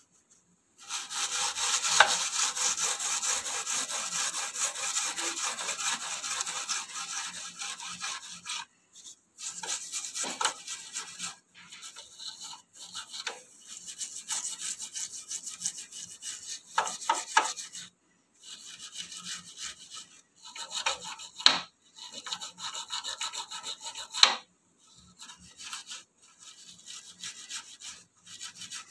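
Steel wool scrubber scraping back and forth over a greasy gas stove lathered in foaming kitchen cleaner, scrubbing off grease stains that wiping alone did not lift. One long spell of fast strokes, then shorter bursts with brief pauses.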